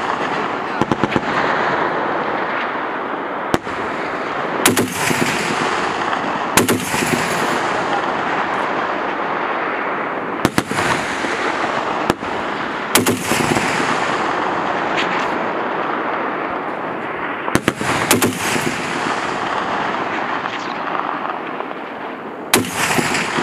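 M2 .50 caliber heavy machine gun firing short bursts and single shots every few seconds, each followed by a long rolling echo.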